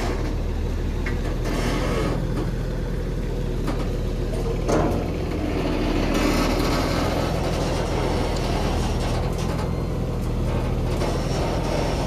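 Bus engine running steadily with a low hum, with washes of road and body noise and a single sharp knock about five seconds in.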